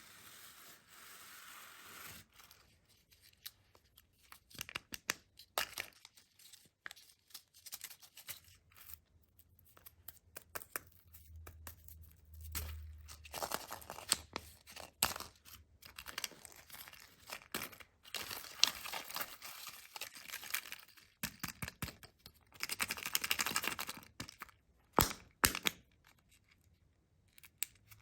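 Candy wrappers being torn open and crinkled by hand: a run of tearing and rustling interrupted by many sharp clicks and taps, with a longer stretch of rustling near the end.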